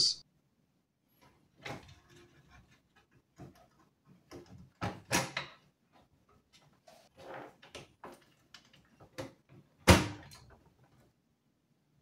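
Irregular clicks, taps and knocks of a motherboard and its plastic standoffs being worked into place in a steel PC case, with one louder knock about ten seconds in.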